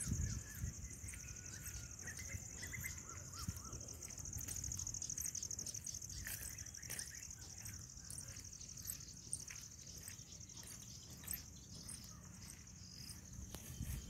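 Field insects chirring steadily in a high, fast-pulsing trill, with a few short bird chirps in the first few seconds.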